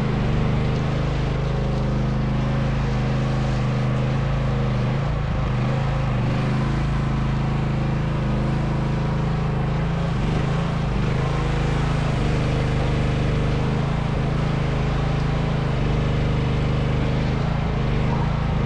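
Chinese mini excavator's engine running at a steady speed.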